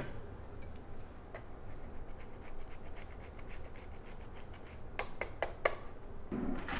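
A block of Parmesan being grated on a handheld rasp grater: faint, steady scraping, with a few sharper clicks about five seconds in.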